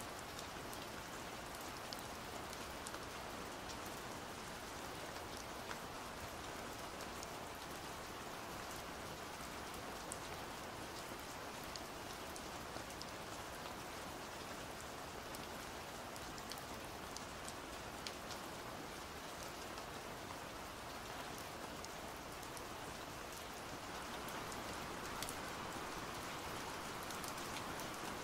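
Steady pouring rain, with individual drops ticking now and then, getting a little louder near the end.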